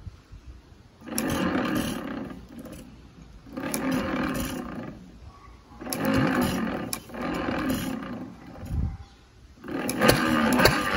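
1920 Hercules-built Economy hit-and-miss gas engine being started by hand-spinning its flywheels: a series of loud bursts about a second long as it tries to fire. About ten seconds in it catches and keeps running with a regular beat.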